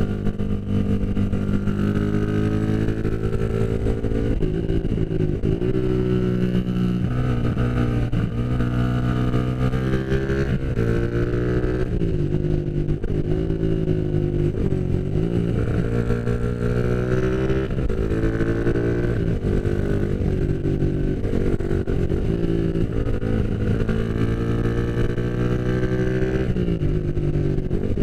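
Motorcycle engine heard from on board while riding. The pitch climbs under acceleration and drops sharply again and again as gears are changed and the throttle is rolled on and off.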